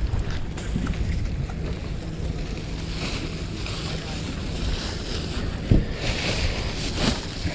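Wind buffeting a GoPro's microphone outdoors: a steady low rumble, with one sharp knock about three-quarters of the way through.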